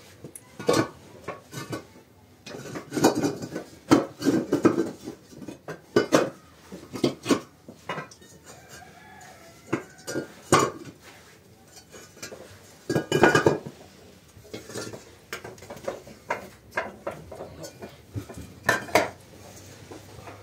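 Hollow bricks clacking and knocking against one another as they are lifted from a stack and set down side by side on a dirt floor, in irregular clusters of sharp clatters.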